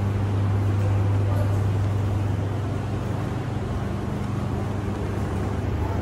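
Steady low hum of commercial coin-operated front-load washers and tumble dryers running in a self-service laundry, with a constant low drone under a noisy whirr.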